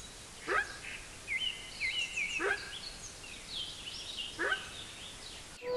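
Wildebeest (gnu) giving three short grunting calls, about two seconds apart, with small birds chirping in the background.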